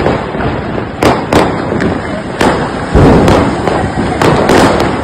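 Many firecrackers and fireworks going off at once: a continuous dense crackle broken by about ten sharper bangs, a few tenths of a second to a second apart.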